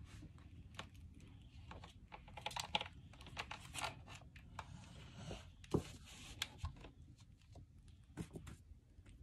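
Handling noise from a plastic portable radio and its power cord being coiled up: scattered small clicks, taps and brief rustles of the cord against the casing, with one sharper knock about six seconds in.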